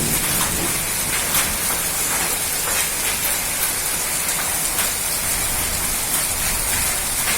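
Heavy rain mixed with falling hailstones: a steady hiss of rain with scattered sharp ticks of hailstones striking.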